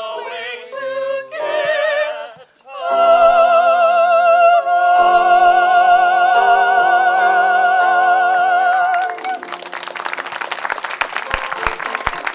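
Singing with instrumental accompaniment, ending the song on a long high note held with vibrato for about six seconds. Audience applause breaks out about nine seconds in as the song ends.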